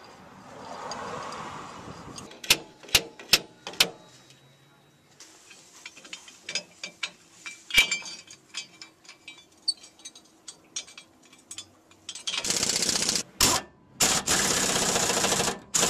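Metal clinks and four sharp knocks, then scattered clicks as suspension nuts and bolts are handled. Near the end an impact wrench runs in two bursts of about a second and a second and a half, driving a leaf-spring mounting bolt through a long socket extension.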